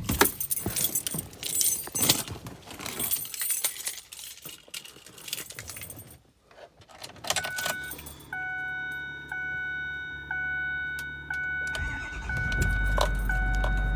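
Keys jangling and a truck door being handled, then a repeating dashboard warning chime for a few seconds while the glow plug light is on. About twelve seconds in, the 6.4 Powerstroke V8 turbodiesel cranks briefly and catches straight away: an easy cold start in freezing weather with the block heater plugged in. It settles into a steady idle.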